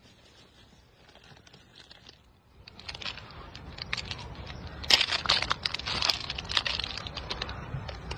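Macaque biting and chewing crunchy food close to the microphone: a dense run of sharp crunches starting about three seconds in, loudest around the middle.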